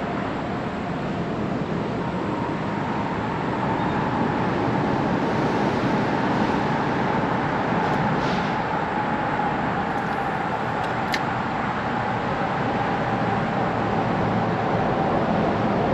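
Boat motor running steadily: a constant whine over a rushing noise, with one short click about eleven seconds in.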